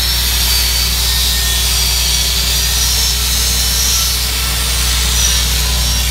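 Electric angle grinder with a grinding disc running against the bevelled end of a steel pipe, grinding a flat landing onto the bevel and taking off rust. A steady, loud grinding hiss over a low hum, with no break.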